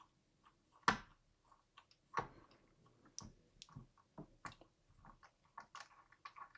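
Faint, irregular small clicks and ticks of a screwdriver working the bottom-panel screws of a laptop, with two sharper clicks about one and two seconds in.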